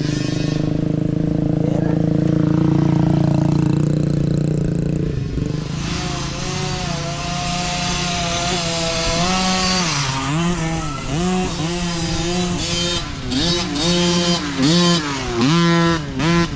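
Mini dirt bike engine revving up and down over and over as the rider works the throttle, growing louder as the bike comes closer. A steadier engine drone fills the first few seconds.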